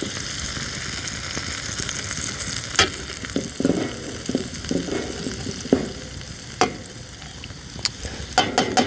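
Hamburger patties and onions frying in a skillet, a steady sizzle. A few sharp knocks come now and then, more of them near the end.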